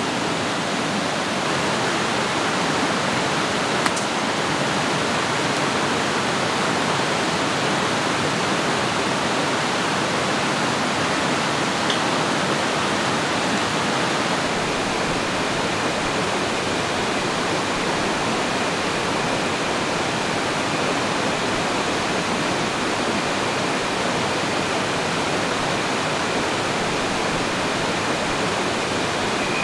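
Steady rush of a rocky mountain stream flowing over boulders. A single sharp click sounds about four seconds in, and a faint, steady high tone comes in about halfway.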